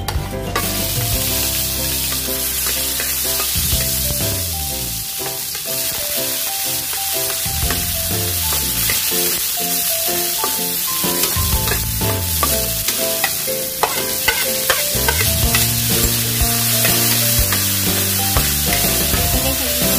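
Oil sizzling in a pan as food is sautéed and stirred, starting about half a second in, with background music over it.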